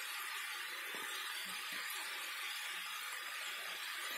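Shredded cabbage, onion and carrot sizzling steadily in a frying pan: an even hiss.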